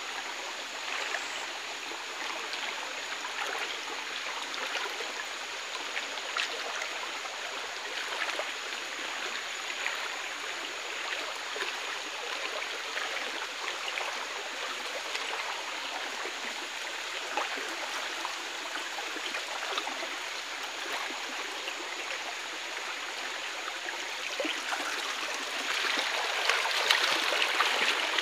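Shallow forest stream running and trickling over rocks, a steady rush of water that grows louder near the end.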